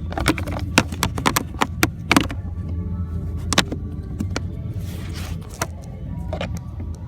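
Sharp plastic clicks and knocks as the cabin air filter cover of a 2013 Ford Focus is pushed and worked into its slot. A quick cluster comes in the first two seconds or so and a few single knocks follow later, over a steady low hum.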